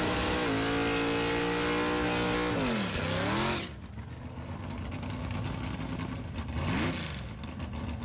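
Drag car's engine revved and held at high revs during a burnout, with a loud hiss of spinning tyres. About three seconds in the revs drop, flare once more and fall away to a quieter run, with one more short rev near the end.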